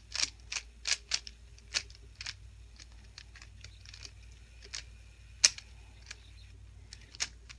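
Rubik's cube being turned by hand, its plastic layers clicking as they snap round: quick irregular clicks for about two seconds, then sparser ones.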